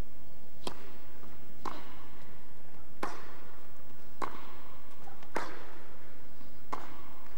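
Tennis ball struck back and forth with rackets in a baseline rally: six sharp hits about a second and a quarter apart, each with a short echo.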